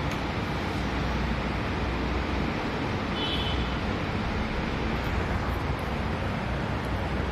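Steady background rumble and hiss, with a brief high beep-like tone about three seconds in and a few faint light clicks a couple of seconds later.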